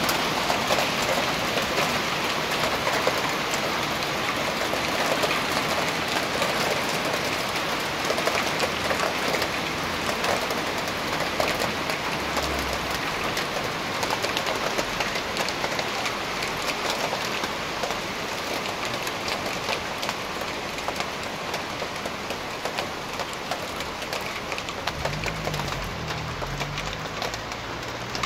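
Hailstorm: hailstones and rain pelting down on the street, cars and balcony, a dense steady clatter of countless small impacts that eases a little over time. A car engine hums below near the end.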